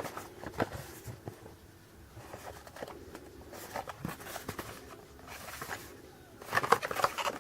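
Light handling sounds of a cardboard box and its packaging: scattered taps and rustles, with a busier cluster of clicks about six and a half seconds in.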